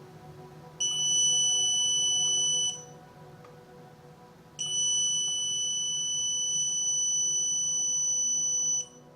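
Non-contact voltage detector buzzing with a steady, high-pitched electronic tone, twice: a short tone of about two seconds, then a longer one of about four seconds. It is sensing live voltage on the switch wires, the sign that the circuit breaker has not been turned off.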